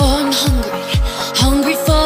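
Background music with a steady kick drum about twice a second under a melody line, with no singing.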